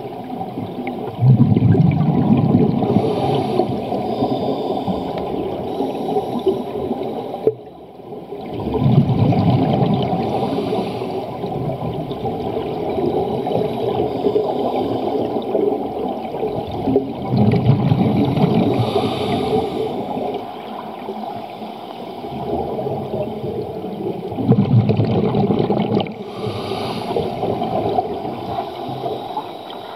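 A scuba diver's breathing through a regulator, heard underwater: four loud surges of bubbles rumbling out on each exhale, roughly every seven to eight seconds, with a fainter hiss from the regulator between them.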